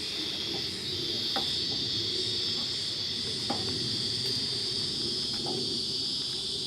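A steady, unbroken high-pitched insect drone from a chorus of calling insects, over a low even background hum, with a few faint short chirps or ticks.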